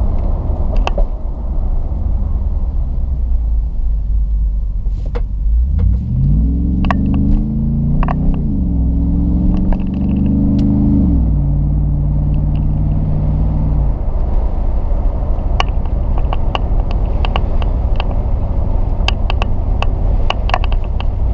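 2010 Jeep Grand Cherokee SRT8's HEMI V8 through a Borla S-Type cat-back exhaust, with a steady low road rumble. About six seconds in it accelerates, the exhaust note climbing, dropping at two upshifts and then holding a steady drone that dies away around fourteen seconds in. A few short clicks are scattered through.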